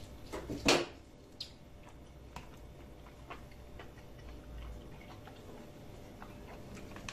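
A few sharp knocks of cooked lamb rib bones against a wooden cutting board in the first second or so, the loudest just under a second in, as chops are lifted off the rack; then faint scattered ticks.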